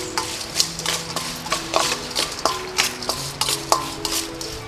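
Raw tiger prawns being tossed with salt in a stainless steel bowl: irregular wet clicks and clatters of shells and a metal spoon against the bowl, a few a second.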